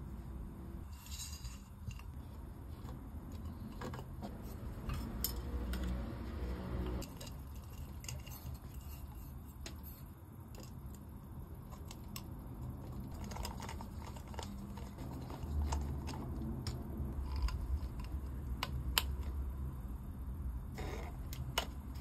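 Small clicks and scrapes of plastic and metal lamp parts being handled and fitted together, as a nut is turned on a threaded fitting and a plastic shade is pushed onto a gooseneck arm. The clicks come irregularly over a low steady hum.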